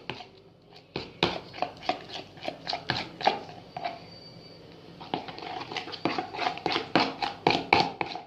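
Spoon stirring freshly set glue-and-borax slime in a bowl: a run of irregular clicks and knocks as the spoon hits the bowl, about three or four a second.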